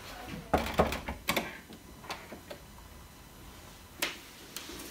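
Wooden interior door being handled: a cluster of knocks and clicks from the handle and latch in the first second and a half, then one sharp click near the end.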